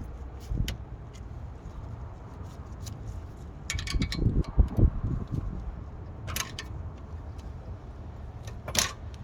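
Metal clinks and knocks of hand tools and brake parts being handled while the rear caliper's parking brake cable is worked loose, with a few sharp clicks spread through and a run of low knocks about halfway.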